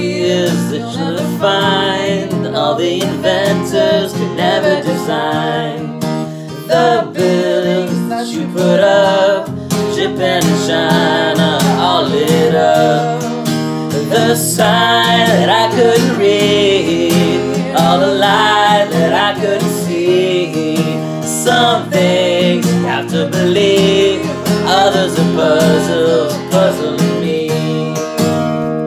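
Strummed acoustic guitar accompanying a man and a woman singing together.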